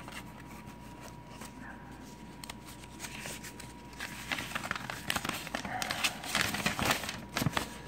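Paper and packaging being handled: rustling and crinkling with quick clicks and taps, sparse at first and busier from about halfway. A faint steady high tone runs underneath.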